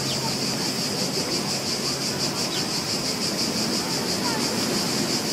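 Recorded beach ambience: a steady wash of surf with a high, rapidly pulsing buzz running above it.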